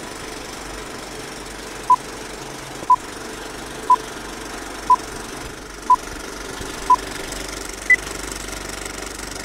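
Old-film countdown-leader effect: a film projector running with a steady clatter under short beeps once a second, six at one pitch, then a single higher beep about eight seconds in.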